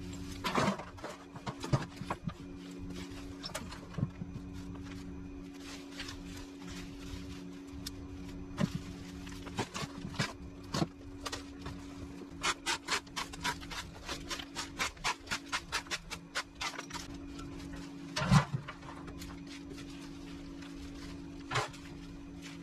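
Hand-weeding: rustling, scraping and tearing as dry grass and weeds are pulled from dry soil, with a quick run of small crackles around the middle and a few louder knocks. A steady low hum runs underneath.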